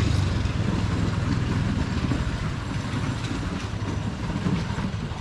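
Small gas engine of a chain-driven homemade wooden cart running under way, with a rhythmic mechanical clatter, growing somewhat quieter toward the end. The drive chain is loose and comes off its sprocket around this time for lack of a chain tensioner.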